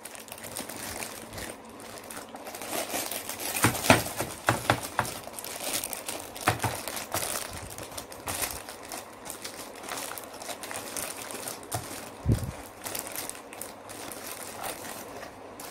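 Thin clear plastic bag crinkling and rustling in irregular handfuls as a toy car is unwrapped by hand, with one dull low thump late on.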